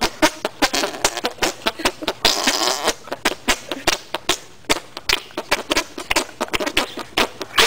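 Armpit farts made by three people at once, pumping their arms against hands pressed into their armpits: a rapid, uneven string of short popping sounds, several a second, overlapping.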